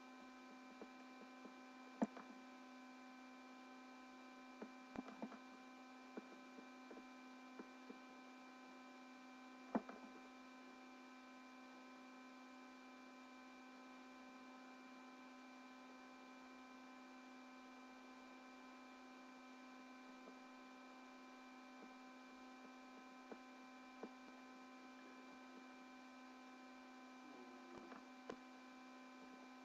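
Near silence: a faint, steady electrical hum made of several constant tones, with a few faint clicks, the sharpest about two and ten seconds in.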